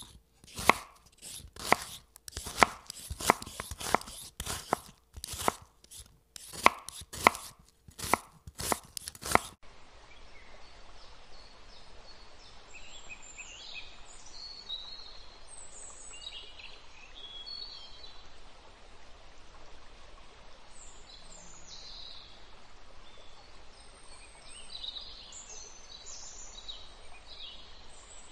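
A knife chopping on a wooden cutting board: about a dozen sharp strikes over the first nine or so seconds, then it cuts off. After that, a faint steady hiss with scattered short bird chirps.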